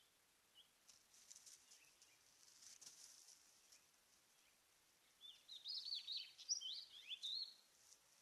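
Small birds twittering: a few faint high chirps, then a quick burst of rapid, high, falling chirps about five seconds in, over a faint hiss.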